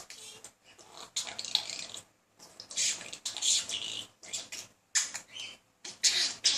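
Budgerigar chattering and warbling in a run of high-pitched bursts with short pauses between them.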